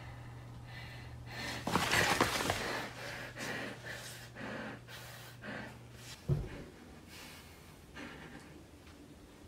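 A person taking loud, gasping breaths and sniffs through the nose: a long one about two seconds in, then a run of shorter ones about every second. A dull thud comes about six seconds in.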